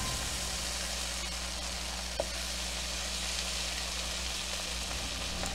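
Buttered bread slices sizzling steadily in a hot nonstick frying pan, with one light tap about two seconds in.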